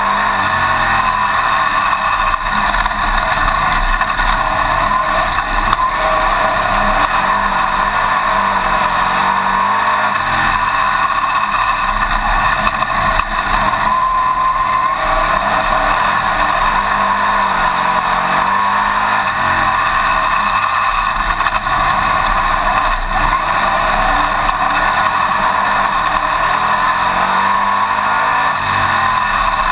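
Winged dirt-track modified race car's engine running hard, heard from inside the car, its pitch rising and falling over and over as it laps the track.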